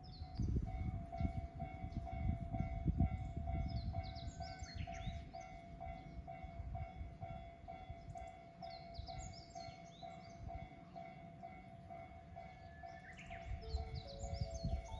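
Diesel railcar of a Koumi Line local train rumbling at the station platform, loudest in the first few seconds and again near the end. A warning tone pulses about two to three times a second throughout, and birds chirp over it.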